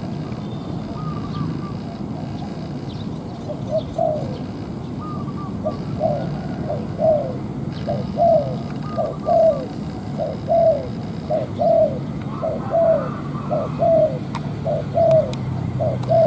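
Spotted dove cooing over and over, with short falling notes that settle into a steady run of about two a second from around six seconds in. A steady low hum runs underneath.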